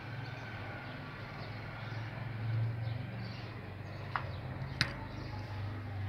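A few short, sharp chirps from caged finches, European goldfinches, about four and five seconds in, with faint twittering over a steady low hum.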